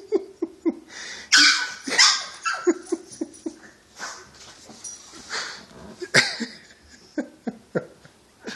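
A pug whining and yipping in a string of short, repeated cries, with a few louder barks among them: a jealous dog wanting attention.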